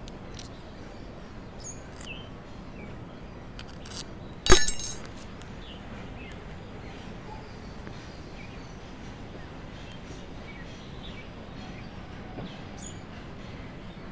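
A metal spoon clattering once on a concrete floor about four and a half seconds in, with a brief metallic ring, over steady outdoor background noise and faint bird chirps.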